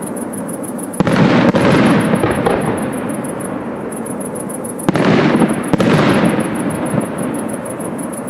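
Aerial firework shells bursting, three bangs about a second in and twice more around five to six seconds in, each trailing off over a second or so. A fainter fast, high-pitched pulsing runs steadily underneath.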